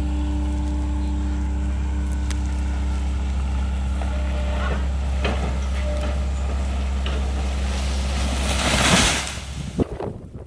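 Excavator's diesel engine running steadily, with a few sharp cracks. About nine seconds in, a loud rushing noise swells, and then the engine sound drops away abruptly.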